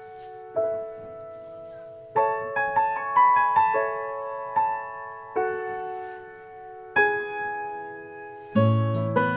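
Background music: slow solo piano, single notes and chords struck every second or two and left to ring. Near the end a fuller, lower passage comes in.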